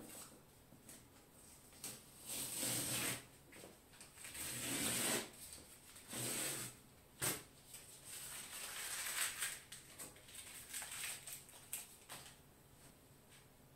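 Masking tape being peeled off the edges of a sheet of paper: three longer tearing pulls in the first seven seconds, a sharp click, then a run of shorter pulls.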